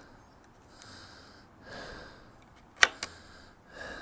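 Screwdriver clicking twice against the carburettor of a stopped cut-off saw while it probes for a hard-to-reach adjustment screw, a sharp click a little under three seconds in followed by a lighter one. Soft breathing between.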